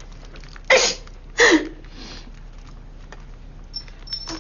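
A woman sneezing twice in quick succession, the second sneeze ending in a voiced note that falls in pitch. The others take the repeated sneezing for a possible allergy to cat fur.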